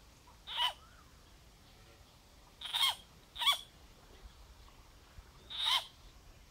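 A frog's distress cries, four short screams with a bending pitch: about half a second in, twice in quick succession near three seconds, and near the end. The frog is calling as it is caught by a snake.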